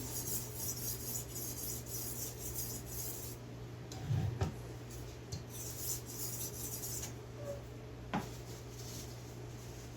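A wet 15 micron resin diamond stone on a guided sharpening jig, stroked along a chef knife's edge in a quick run of hissing scrapes. The strokes stop about three seconds in. A knock comes around four seconds, another short run of strokes near six seconds, then a single click.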